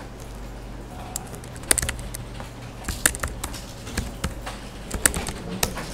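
Typing on a computer keyboard: irregular, spaced-out keystrokes, with a faint steady low hum underneath.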